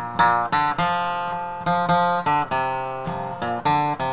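Acoustic guitar strumming chords in an instrumental break between sung lines, a series of sharp strokes that ring and fade.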